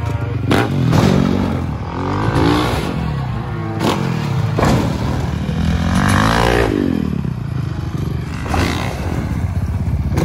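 Motocross dirt bike engines revving hard and dropping off again and again, the pitch sweeping up and down several times as riders hit a freestyle jump ramp. A few sharp knocks cut through.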